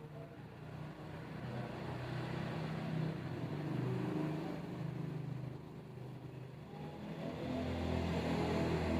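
A motor vehicle engine running, growing louder, fading, then growing louder again near the end.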